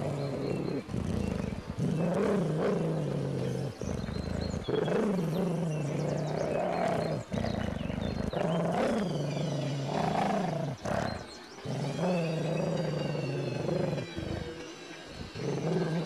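Large dog growling viciously: a string of low, throaty growls, each a second or two long and broken by short pauses for breath, rising and falling in pitch.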